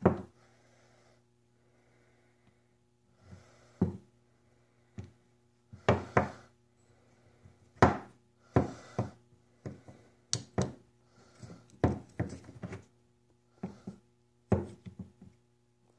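Machined aluminium landing gear parts for a large-scale RC P-38 knocking and clicking as they are handled on a workbench: a dozen or so irregular sharp knocks, most of them in the middle of the stretch, over a steady low hum.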